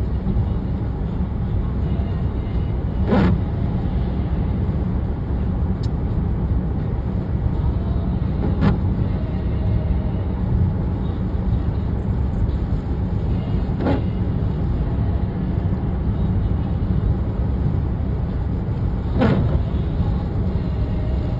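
Steady road and tyre noise inside a car's cabin on a wet highway. The windshield wipers make four evenly spaced sweeps, about every five and a half seconds, each a short swish that falls in pitch.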